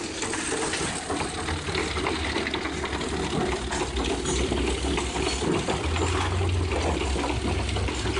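Fisher+Ruckle veneer splicer running as a sheet of wood veneer feeds through it: a steady low machine hum under an even rushing noise.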